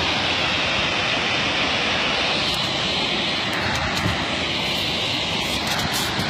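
Waterfall running at high spring flow: a steady, even rushing of water.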